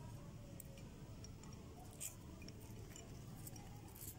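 Thick clear slime being pulled and pressed out of a glass bowl by hand: faint, scattered sticky clicks and pops, one louder click about two seconds in, over a low steady hum.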